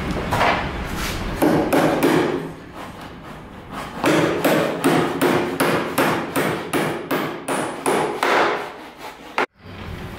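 Hammer striking the plywood-and-timber frame of a shuttering box. A few strikes, a quieter pause of a couple of seconds, then a quick run of about three blows a second, cutting off suddenly near the end.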